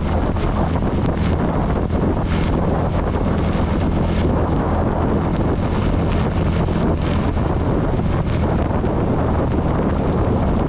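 CB 250 motorcycle engine running steadily while riding through heavy rain, with wind buffeting the microphone and a constant hiss of rain and tyre spray that swells briefly every second or two.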